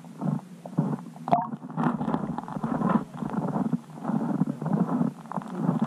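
Muffled underwater rumbling and irregular knocks picked up by an underwater camera beneath the ice, with one sharper click about a second and a half in.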